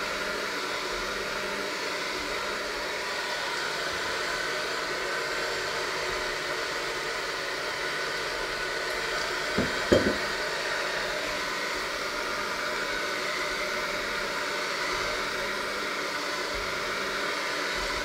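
Electric hand mixer running steadily, its beaters working a flour mixture in a stainless steel bowl, with two brief knocks about halfway through.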